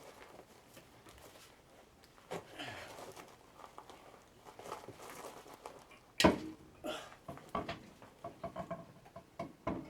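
Knocks and scuffs of a heavy rear tractor tire and wheel being wrestled and turned into place on the hub, with one sharp knock about six seconds in.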